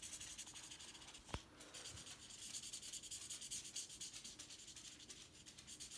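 Felt-tip marker rubbing back and forth on paper as a small area is coloured in, faint, with one small click about a second and a half in.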